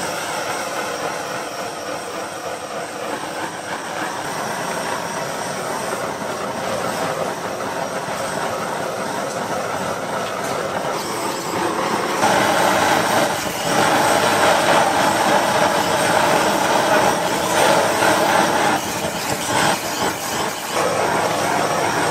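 Handheld butane torch on a gas canister burning with a steady rushing hiss as it flame-sears a sauce-coated octopus skewer. It gets louder about halfway through, with a few brief dips.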